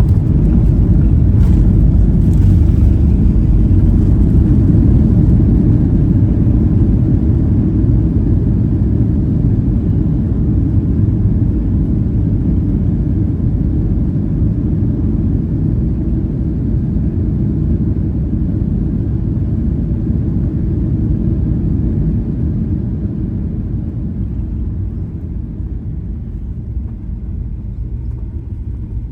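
Low, steady rumble inside the cabin of a Boeing 737-800 as it lands, slowly dying away over the last third as the jet slows down.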